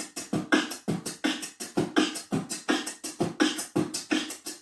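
Beatboxing: a shortened drum and bass beat, one bar repeated over and over, as a fast, even run of mouth-made drum hits at about four to five a second.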